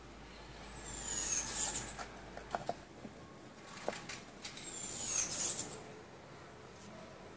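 Light clicks and knocks as small glitter-covered craft boxes and their lids are handled on a table, with a high squeak that falls in pitch, twice.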